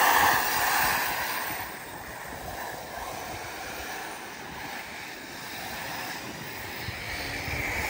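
Electric RC off-road buggies racing on a dirt track: an even rushing hiss of motors and tyres on dirt, loudest in the first second or so, then steadier and quieter.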